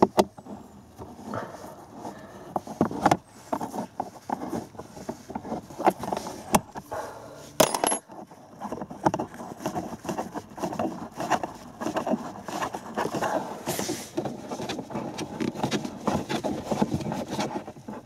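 Small metal screws and a tool clicking and rattling against hard plastic dash trim, with scraping and handling noise, as the Torx screws holding the panel under the glove box are undone. There are several sharp clicks, the loudest in the first eight seconds.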